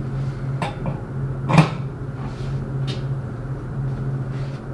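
Four short knocks of metal parts as a mixer impeller is set into the bottom of a stainless steel tank, the loudest about a second and a half in, over a steady low hum.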